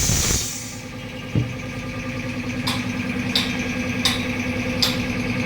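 Pneumatic tyre bead breaker pressing a truck tyre's bead off the rim: its air hiss cuts off just after the start, leaving a steady machine hum with a knock about a second and a half in and four sharp clicks about 0.7 s apart.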